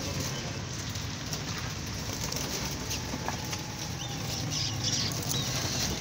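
Many birds' wings flapping and fluttering, a steady rustle of small wingbeats.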